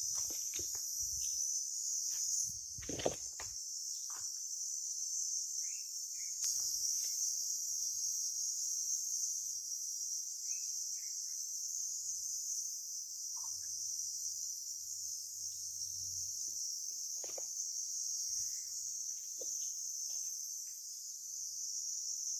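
Insects chirring in a steady high-pitched chorus, with scattered faint rustles and a soft knock about three seconds in.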